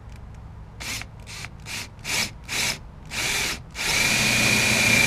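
Cordless drill with a split-point bit drilling into the old sheet metal of a Land Rover Series II body. It starts with about five short trigger bursts, then a longer one, then runs steadily with a thin whine near the end as the bit cuts in.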